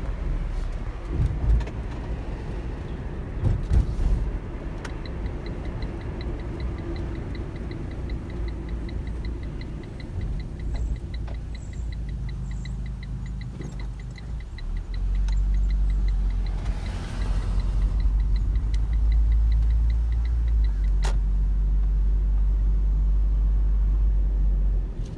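Engine and road rumble inside a moving car's cabin, growing louder about fifteen seconds in. A few thumps come early on, and a fast, even, high ticking runs through the middle stretch.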